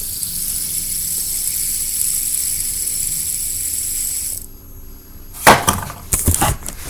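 Fidget spinner's bearing whirring with a steady high hiss, cut off abruptly about four and a half seconds in. A few sharp clicks and knocks of the spinner being handled follow near the end.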